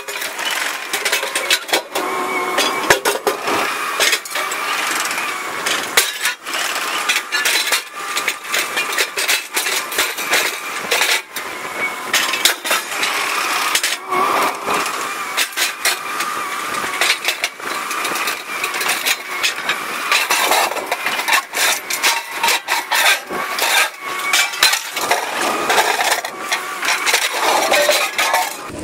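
A demolition excavator runs steadily while its grapple drops a small steel safe onto a concrete foundation edge; the safe slams down several times as sharp metal-on-concrete impacts until its door breaks off.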